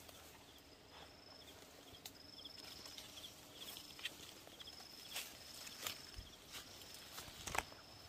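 Leaves rustling and twigs snapping as someone pushes through brush on foot, with a sharp crack near the end. Behind it, a thin high call repeats about once a second, with short trilled notes in between.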